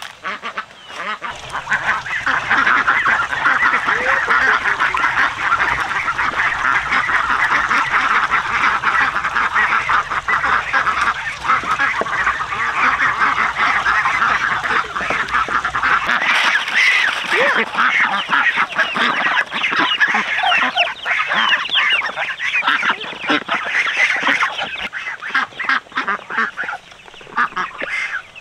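A flock of poultry calling over one another in a dense, loud, unbroken chatter. A steady low hum underneath cuts off about halfway through.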